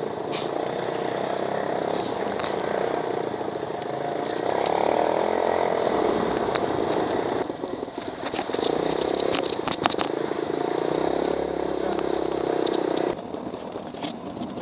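Off-road buggy engine running steadily while driving over a dirt track, with scattered clicks and rattles from the bumpy ride. The engine note shifts a couple of times and turns quieter near the end.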